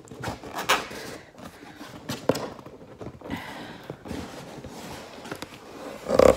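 Handling and opening a cardboard doll box: irregular scraping, rustling and a few sharp knocks of cardboard and packing, with a louder bump near the end as the box is moved close to the microphone.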